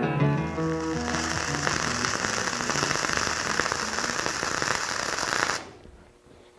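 Flux-cored wire-feed welding arc crackling steadily, then cutting off sharply near the end. The last notes of an acoustic guitar tune fade out in the first second.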